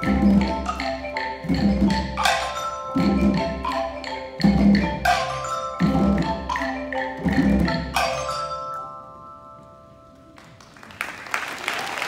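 School Orff ensemble playing xylophones and other barred mallet instruments over a drum stroke about every second and a half. The music stops about nine seconds in, its last notes ringing for a moment, and applause starts near the end.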